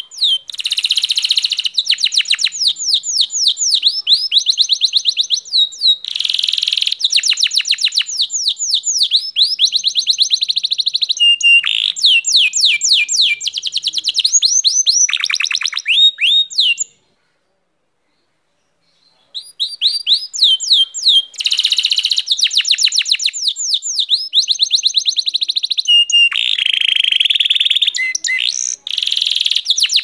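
Domestic canary singing a long, loud song of fast trills and rapidly repeated high notes. The song breaks off for about two seconds a little past halfway, then resumes.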